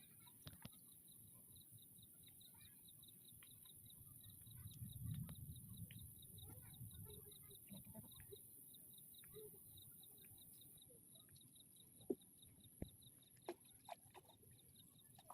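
Near silence: faint outdoor background with scattered small clicks and a faint, even chirp repeating about four times a second, and a soft low rumble swelling briefly a few seconds in.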